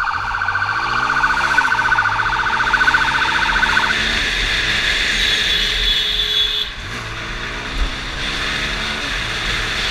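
Police motorcycle siren warbling rapidly, cutting off about four seconds in. Underneath, the motorcycle engine revs up and down through the gears as it accelerates through traffic.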